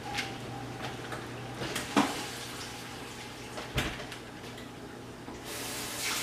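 Kitchen clatter: a few knocks of dishes and utensils being handled, the loudest about two seconds in. Near the end, a kitchen tap runs briefly.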